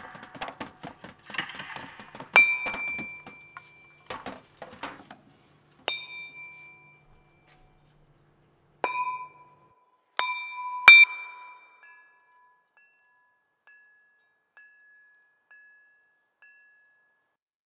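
A chime struck five times, each strike ringing out briefly on a clear high pitch, the strike about eleven seconds in the loudest; before the strikes there is scuffling and rustling, and after them a run of six short, faint high pips about a second apart.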